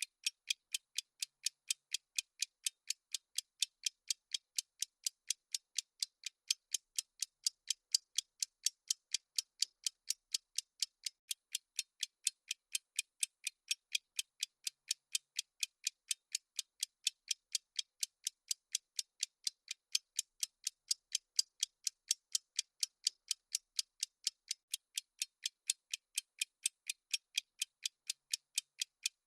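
Clock-ticking sound effect of a countdown timer: crisp, high-pitched ticks at an even, rapid pace, several a second, steady throughout.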